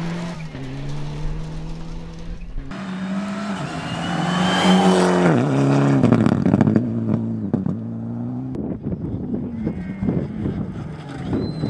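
Rally cars at full throttle on a gravel stage, engines revving up and dropping in pitch through gear changes and lifts. The sound breaks off abruptly between shots twice, and is loudest as a car goes hard about five to seven seconds in.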